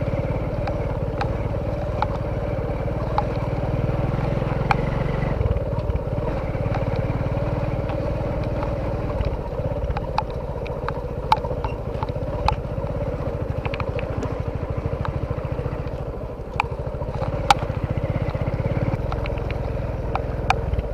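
A small engine running steadily at an even speed, with scattered light clicks and knocks.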